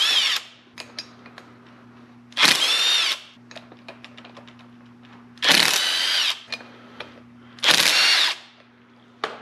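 Cordless impact wrench backing out the four bolts of an air-pack housing, running in four short bursts of under a second each with a pitched motor whine, with small clicks of socket and bolts in between.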